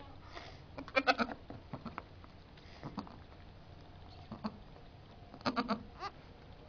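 Goats bleating in short, quick calls: a cluster of several about a second in and another near the end, with a few fainter single calls between.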